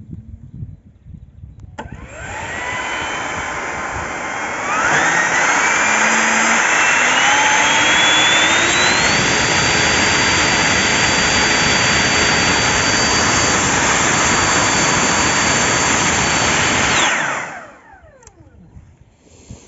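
3D-printed 120 mm electric ducted fan, driven by a HET Typhoon 800-73 590 kV motor on 12S, starting up about two seconds in and running at low throttle. It then spools up with a rising whine over rushing air to full power, holds steady for about eight seconds, and winds down near the end with a falling whine.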